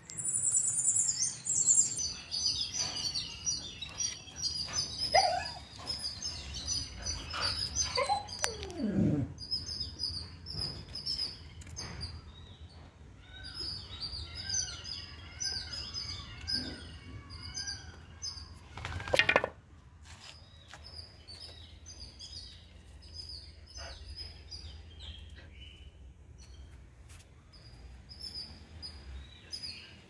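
Small birds chirping: many short, high calls repeating throughout over a steady low rumble. A brief, louder sweep of noise cuts through about two-thirds of the way in.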